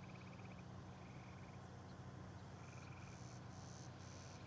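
Faint frog calls: short, rapid trills repeating about once a second. From about three seconds in, a higher buzzing call repeats in short pieces, all over a low steady hum.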